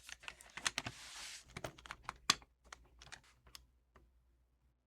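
Irregular plastic clicks, taps and a brief rustling scrape from handling the opened-up keyboard's case and internal parts. The sharpest click comes a little over two seconds in.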